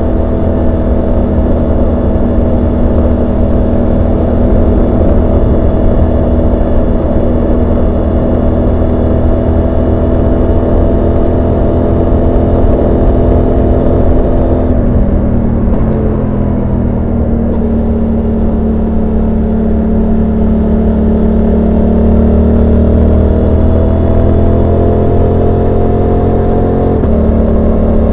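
Suzuki GSX-8S 776 cc parallel-twin engine and exhaust, recorded from on board while riding. The engine note sinks slowly, steps down about halfway through, climbs gradually, then steps again near the end.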